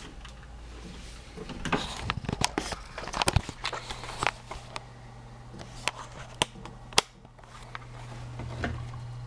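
Camera handling noise as the camera is picked up and carried: a run of knocks and rubs, then a few single sharp clicks. A low steady hum sets in about three and a half seconds in.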